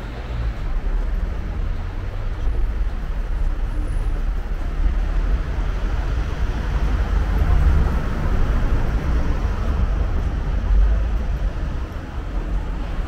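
Street traffic noise: a steady rumble of vehicles passing on the road.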